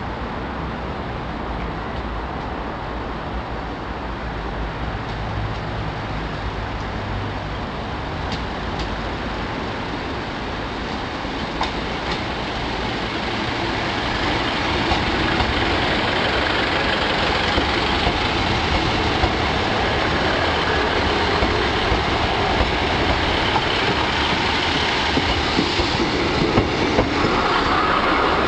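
Class 150 Sprinter diesel multiple unit approaching and running past along the platform: a steady diesel engine drone that grows louder about halfway through, with the wheels clicking over rail joints as the carriages go by.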